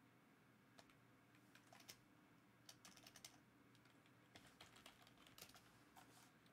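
Faint typing on a computer keyboard: irregular short runs of key clicks.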